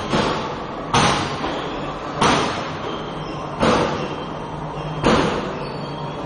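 Forging hammer striking hot metal in a steady rhythm: four heavy blows about one every second and a half, each with a short ringing decay, over a steady low machine hum.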